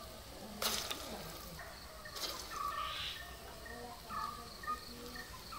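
Bonda batter dropped by hand into hot oil, sizzling in short bursts about half a second and two seconds in as it hits the oil, then a low frying hiss. Faint bird chirps in the background.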